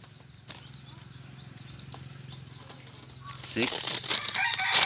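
Burnt, delaminated circuit board layers and their glass-fibre cloth rustling and crackling as gloved hands bend and pull them apart, loud for about the last second and a half after a quieter stretch of small clicks over a faint steady hum.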